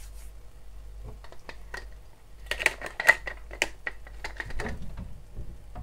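Hand-twisted pepper mill grinding: a quick run of dry clicks lasting about two seconds, starting about halfway through, with a few scattered clicks before it.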